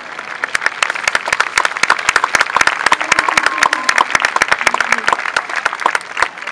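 Crowd applauding, with sharp claps close by, swelling up just after the start and thinning out near the end. A few voices are heard under the clapping.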